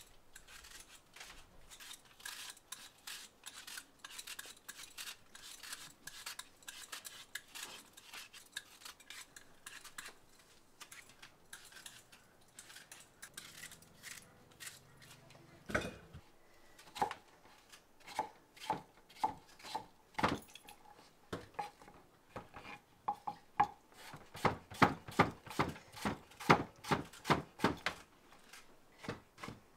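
Hand peelers scraping the skin off apples in many quick, faint strokes. From about halfway, a knife chops apple pieces on a wooden cutting board in sharp knocks that come faster and louder near the end.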